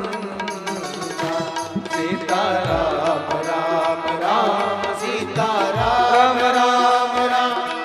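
Devotional sankirtan music: voices singing a chant over steady held tones, with a deep drum stroke about every three seconds.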